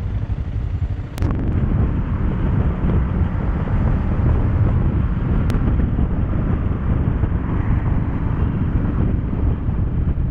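Wind buffeting the microphone over a motorcycle's running engine while riding on the road. The noise grows louder about a second in as the bike pulls away and then holds steady.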